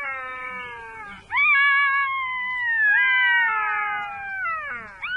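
Black-backed jackals calling in chorus: long wailing cries, each opening with a quick upward yelp and then sliding slowly down in pitch, several voices overlapping, with fresh calls starting about a second in, near the middle and at the end.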